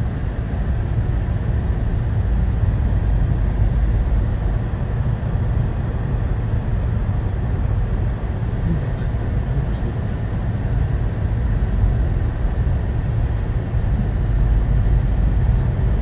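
Steady low rumble of a car driving slowly on a snow-covered road, heard from inside the cabin: engine and tyre noise with no sharp events.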